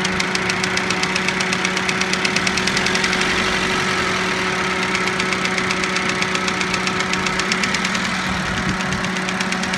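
Toyota Avensis engine idling with a rapid, regular knock, the knock that appeared after the engine was sleeved and given new piston rings and a new timing belt. The ticking fades somewhat in the middle and is plain again near the end.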